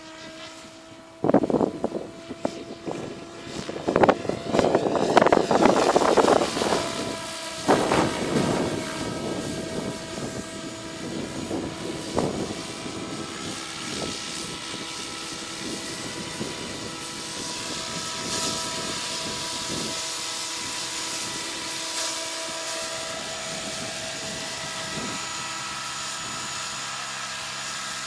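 Radio-controlled SAB Goblin model helicopter flying, its rotor and motor giving a steady high whine. Loud surges of rotor noise in the first several seconds, then an even whine as it comes down to hover low.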